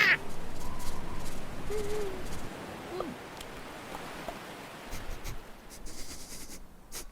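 Homemade foley sound effects: a steady hiss with two short hoot-like vocal calls, one about two seconds in and one about three seconds in, followed by a scatter of small clicks and taps.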